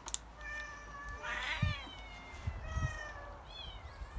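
A cat meowing in drawn-out, wavering calls, "miyaaiaong": several long meows whose pitch bends and falls, the last one short.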